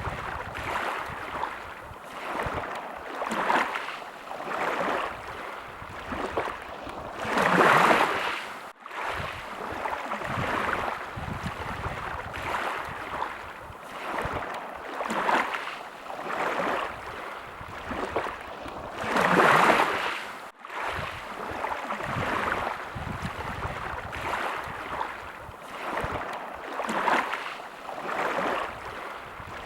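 Small waves lapping at the water's edge, a swell of wash about every second, with a larger wave washing in twice; each larger wash cuts off abruptly.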